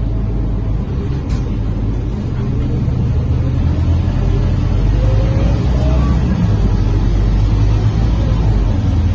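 Scania K230UB city bus heard from inside the cabin while under way: a steady low diesel engine drone with its ZF automatic gearbox, growing louder about three seconds in as the bus accelerates, with a short rising gearbox whine around the middle.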